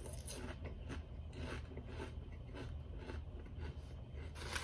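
Close-miked chewing: a person eating with irregular crunchy, wet mouth clicks.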